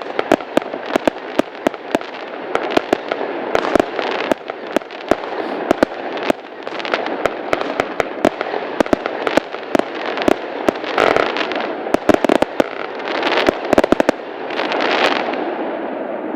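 Fireworks going off in rapid succession: a dense run of sharp bangs and crackles, with hissing swells every few seconds and a heavier cluster of bangs in the second half.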